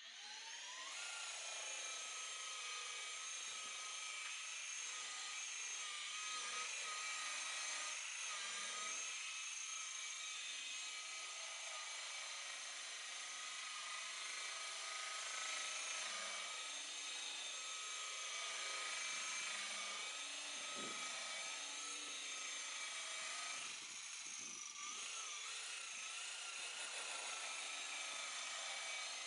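Electric buffer/polisher motor spinning up, then running with a steady high whine while buffing oxidised gelcoat. The pitch sags slightly now and then as it is leaned on, most clearly a little before the end.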